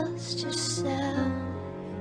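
Slow, tender pop ballad: a woman's singing voice over soft sustained backing. A held note ends at the start, a brief breathy hiss follows, and a short sung phrase comes about a second in.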